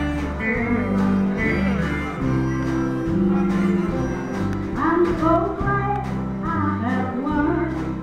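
Country gospel band playing live: guitar chords over a steady bass line, with a woman's singing voice coming in about halfway through.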